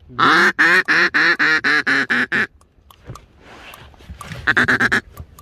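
Duck call blown by a hunter: a loud run of about ten quacks coming quicker toward the end, then a short, fast run of quacks near the end.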